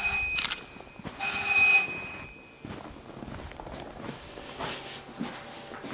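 A bell rings in short loud bursts, one ending just after the start and another lasting under a second from about a second in. After that come quieter scattered knocks and shuffles.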